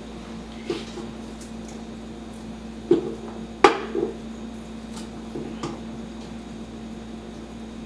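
A few scattered knocks and taps of hands and onion slices against the inside of an enamelware tamale steamer pot, the loudest clunk about three and a half seconds in, over a steady low hum.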